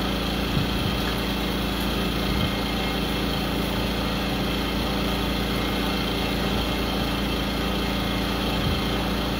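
A small engine runs steadily in the background, an unchanging hum, with a few faint knocks.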